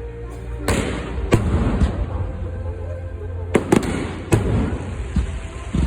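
Fireworks going off close by: about eight sharp bangs, three in quick succession around the middle, with crackling in between.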